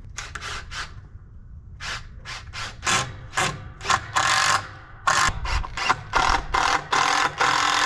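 Cordless drill driving screws into the wooden roof truss: several short bursts of the motor, then a longer steady run from about five seconds in.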